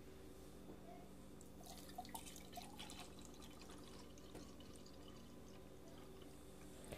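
Faint water dripping and trickling into a container, a scatter of small drips over a steady low hum.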